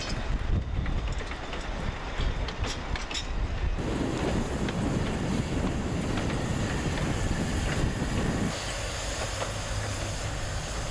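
Wind rumbling on the microphone with a few scattered clicks, then from about four seconds in a steady hiss of escaping steam from a Ffestiniog Railway Double Fairlie steam locomotive.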